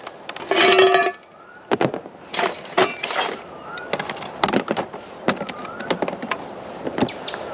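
Campfire crackling, with repeated sharp cracks and pops from the burning wood. Near the start a child lets out a short, loud, high-pitched cry.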